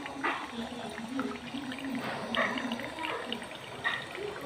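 Distillate running in a fast stream from a homemade still's copper condenser tube into a glass, splashing.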